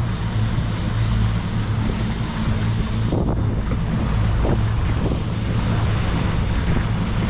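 Boat engine running steadily with a deep, even hum, with wind noise on the microphone.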